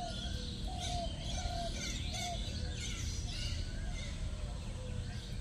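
Several birds chirping and calling in short, overlapping notes at different pitches, over a steady low background rumble.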